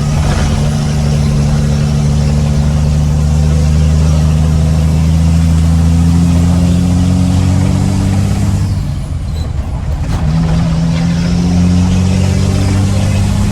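Ford Cargo dump truck's diesel engine pulling under load through its short straight-through exhaust pipe, the revs climbing steadily for about eight seconds. About nine seconds in the note breaks off briefly for a gear change, then picks up again at lower revs and climbs.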